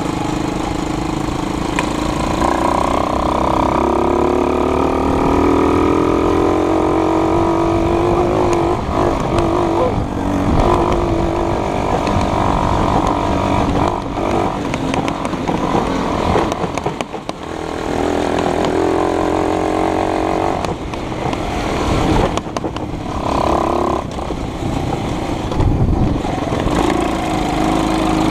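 A vehicle engine running under load, rising in pitch as it accelerates from a couple of seconds in, then rising and falling with a few brief drops.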